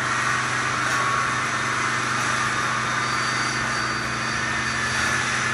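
Wire-mesh fence panel welding and bending line running: a steady mechanical hum under a constant hiss, with no separate knocks.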